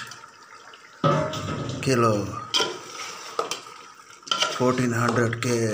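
A metal spoon stirring chicken pieces into masala in a metal cooking pot, scraping and knocking against the pot with a couple of sharper clatters midway.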